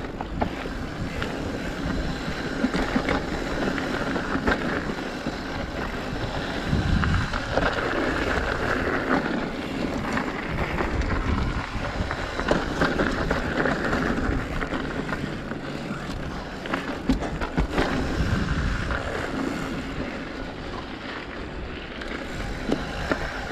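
Mountain bike riding down a dirt trail: tyres rolling over dirt and rock, with irregular clicks and rattles from the bike over the bumps and wind noise on the microphone.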